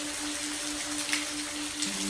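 Steady rain hiss with a few individual drops landing, over a soft, slowly pulsing low synth tone; a deeper held note comes in near the end.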